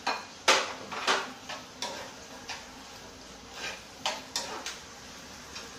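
Spatula knocking and scraping against a non-stick frying pan while stirring a stir-fry: a string of irregular sharp clacks, loudest about half a second and a second in, with another cluster around four seconds in.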